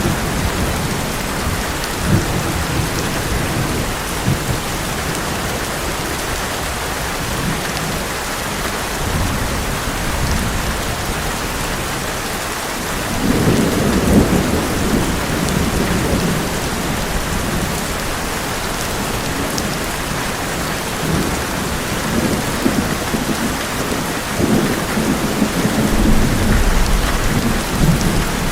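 Heavy rain falling on an old metal roof as a steady hiss, with thunder rolling low under it: a rumble at the start, a stronger roll about halfway through, and more rumbling near the end.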